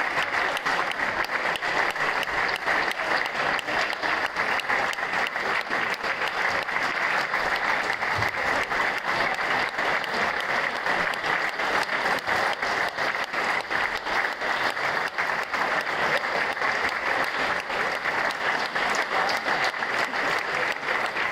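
Sustained applause: many hands clapping in a dense, steady patter.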